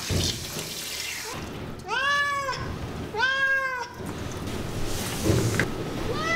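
Ragdoll cat meowing: two drawn-out meows about a second apart, each rising and then falling in pitch, and a third starting near the end.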